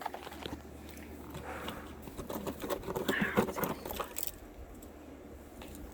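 Small objects being rummaged through and handled in a bin: rustling and light clicks and knocks, busiest in the first four seconds, then quieter.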